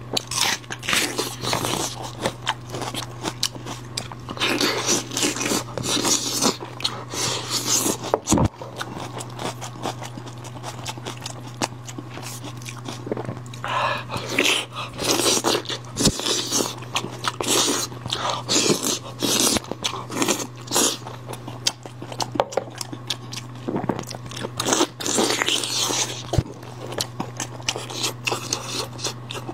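Close-miked eating: crunching bites of a raw red onion, then chewing and gnawing spiced sheep's-head meat off the bone, with hands pulling meat from the head. A steady low hum runs underneath.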